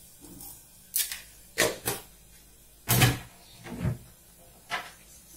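Kitchen handling sounds as salt is spooned into a pressure cooker: about six short knocks and clacks of a spoon and spice containers, the loudest a dull knock about three seconds in.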